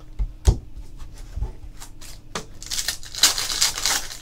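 A foil trading-card pack wrapper being torn open and crinkled by hand, a crackling rustle that starts a little past halfway through. Before it there are a few light taps and one thump from cards being handled.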